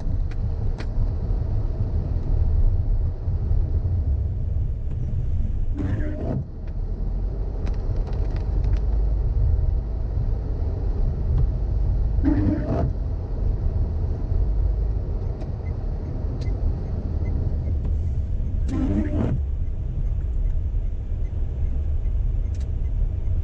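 Steady low rumble inside a car's cabin while driving on wet roads. The windscreen wipers sweep on their intermittent setting, a short swish about every six seconds, four times in all.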